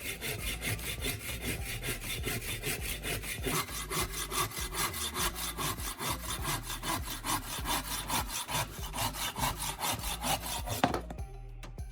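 Saw cutting through a wooden dowel in repeated back-and-forth strokes, about two to three a second, stopping suddenly near the end.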